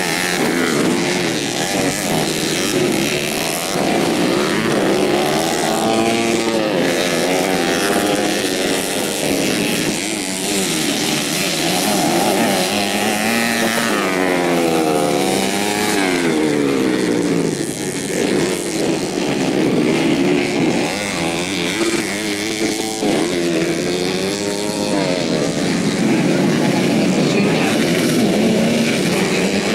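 Several modified 125cc four-stroke underbone motorcycles racing on a dirt motocross track, their engines revving up and down through the gears, with several engine notes rising and falling over one another.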